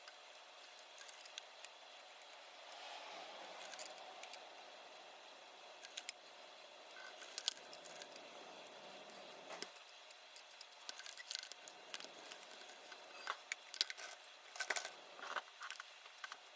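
Scattered small clicks, ticks and light scrapes of tools and tiny parts being handled while a compact digital camera is taken apart for repair, the clicks clustering more densely in the last few seconds.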